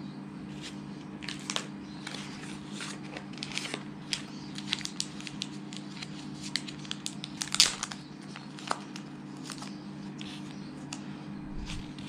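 Small clear plastic accessory packets being handled and opened by hand: a run of sharp crinkles and clicks, loudest a little past halfway, over a steady low hum.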